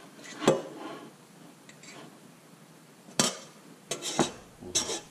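Metal clinks and knocks against a stainless steel saucepan as stuffing is scooped out of it: a handful of sharp knocks, the loudest about half a second in and the rest in the second half.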